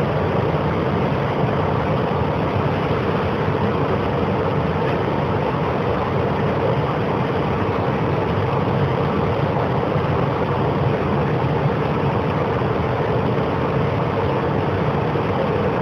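Subway train running through a tunnel, heard from inside the passenger car: a loud, steady rumble and rush of wheels on rail and motor noise with no break.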